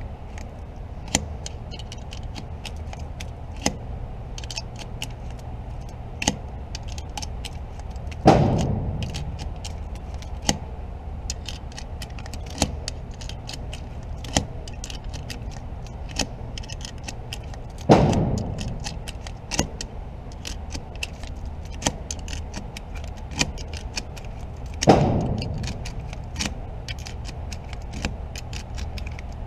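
Three loud gunshots, each with a ringing, echoing tail, about eight, eighteen and twenty-five seconds in. Between them comes frequent light metallic clicking and rattling of handling.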